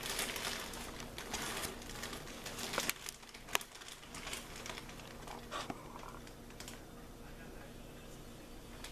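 A plastic zip-top bag crinkling as it is handled and pulled open, with a few sharp clicks, then softer rustling as the bag goes quiet about halfway through.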